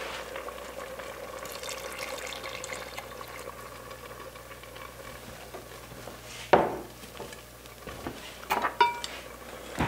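Milk poured into a pot of vegetable filling on the stove and stirred in, with liquid and stirring sounds over a steady hum. A metal spoon knocks against the pot a few times, loudest about six and a half seconds in.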